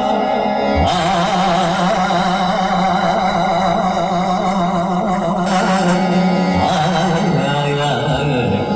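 A voice singing long, wavering held notes over steady instrumental accompaniment: live Indian song music.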